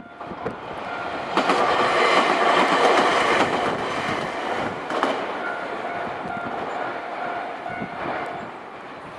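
Nankai electric train passing over a level crossing, its wheels clattering loudest between about one and a half and four seconds in, with a sharp wheel clack around the middle. The crossing's warning bell rings in a rapid repeating two-tone pattern around the passage and stops near the end.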